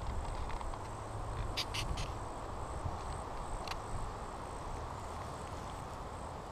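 Outdoor ambience: a steady low rushing noise with a faint, thin, steady high tone above it, and a few short clicks about one and a half to two seconds in and again near four seconds.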